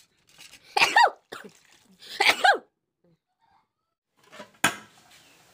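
Two loud sneezes about a second apart, each a sudden burst that falls away in pitch, then a single sharp metal clank near the end.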